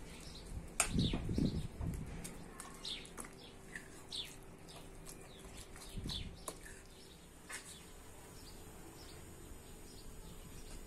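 A spoon squelching and scraping through a wet chicken cutlet mixture in a bowl, loudest about a second in and again around six seconds. Small birds chirp over and over in the background.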